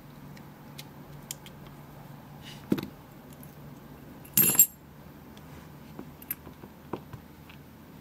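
Small brass lock parts from a padlock core being taken apart by hand: a few light clicks, a clatter near the three-second mark, and a short, louder metallic rattle about four and a half seconds in.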